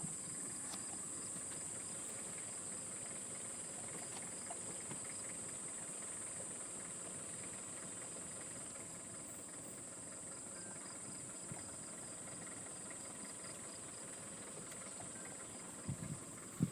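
Insects droning: a steady, unbroken high-pitched chorus. A couple of soft low bumps come near the end.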